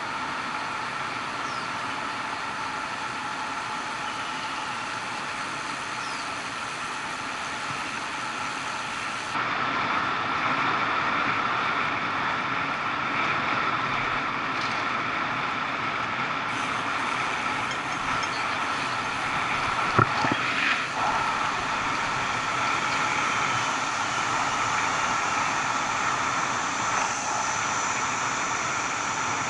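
Steady wind and road noise from travelling along a paved road, a little louder from about a third of the way in, with one sharp knock about two-thirds through.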